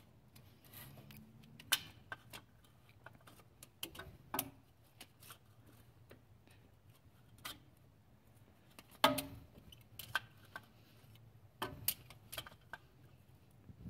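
Scattered small clicks and taps of hands and an oil filter tool working a newly fitted spin-on oil filter snug, with one louder knock about nine seconds in.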